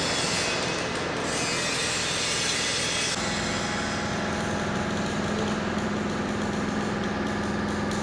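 Arc welding hiss and crackle for about the first three seconds, then an abrupt change to the steady, low machine hum of a factory hall.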